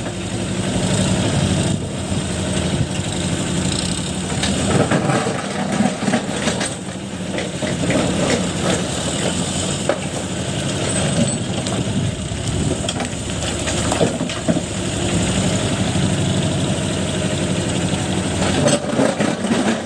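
Diesel engine of a TMX 20 excavator running steadily, with scattered knocks and clatter over it.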